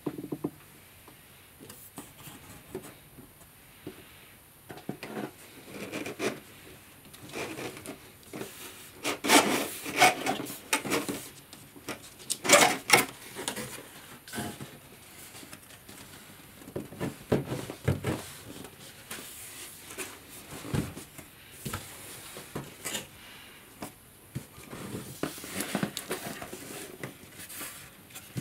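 Cardboard box being opened by hand: the lid and flaps scraping, rubbing and knocking irregularly, loudest about a third of the way through.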